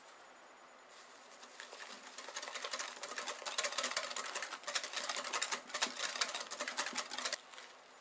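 Whisk beating partly thickened custard cream in a glass bowl: a fast run of clicks and scrapes from the wires on the glass. It builds up about a second in, is loudest in the second half and stops suddenly near the end.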